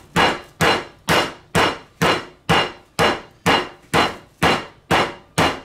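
Metal meat mallet pounding a chicken breast wrapped in plastic on a cutting board: a steady run of sharp blows, about two a second, each with a brief ring.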